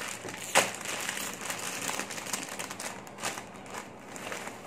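Foil-lined plastic snack bag crinkling as it is torn open, with one sharp crack about half a second in, then scattered crackles and rustling that fade as the bag is tipped out over a bowl of puffed snacks.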